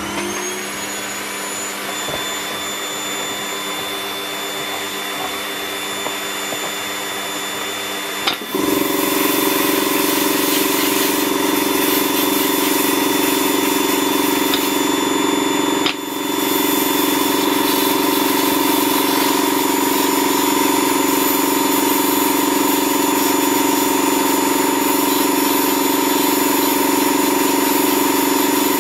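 Vacuum (hoover) dust extraction on a benchtop sandblasting cabinet running with a steady whine; about eight seconds in the sandblast gun is triggered and a louder hiss of blasting air and grit joins it, breaking off for a moment once around the middle.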